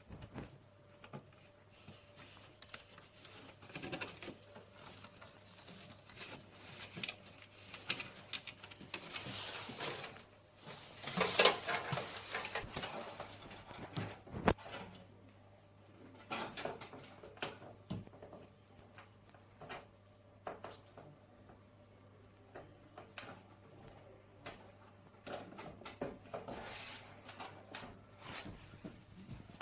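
Hands working on PC parts and cables: scattered light clicks, taps and rustling, busiest about a third of the way in, over a faint steady hum.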